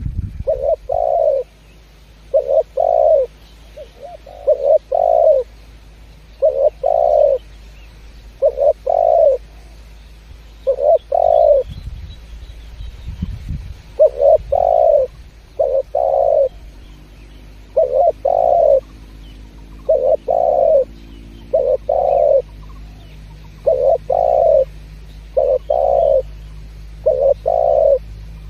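Spotted dove (tekukur) cooing over and over: short paired coos every second or two, with a brief pause partway through.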